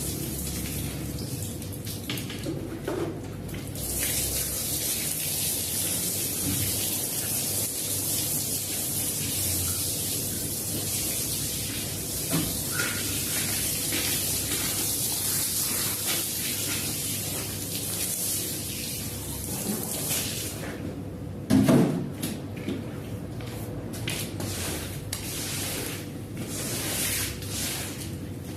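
Water spraying steadily onto a rug being washed, a continuous hiss. A single loud knock breaks in about three-quarters of the way through, after which the spraying is more broken.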